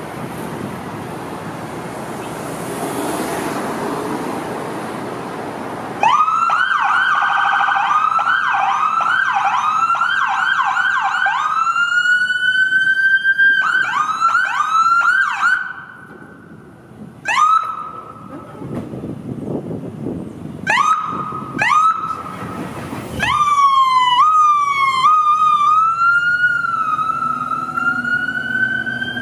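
Electronic siren on a fire-department medic pickup responding, over traffic noise. It comes on suddenly several seconds in with a fast yelp, slides into a rising wail, and cuts out briefly. After a few short chirps it comes back as a yelp and then a slow rising wail.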